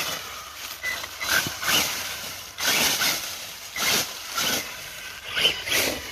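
Axial Ryft RC rock bouncer driving over rough ground in short throttle bursts, about one a second. Its electric motor and drivetrain whine up and down while the tyres scrabble and knock over rocks.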